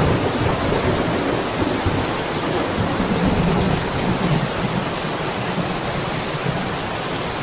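Moderate rain falling steadily: a dense, even hiss with a low rumbling undertone.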